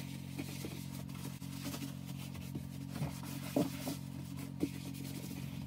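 Paper towel rubbing and wiping across the wet plastic case of a lithium battery, drying it off, with a few short sharp sounds from the towel and hand about three and four and a half seconds in. A steady low hum runs underneath.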